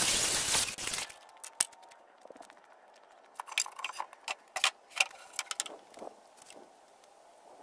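Cordless circular saw cutting through a board, stopping about a second in. Then come a few seconds of scattered sharp wooden knocks and clatter as boards are handled.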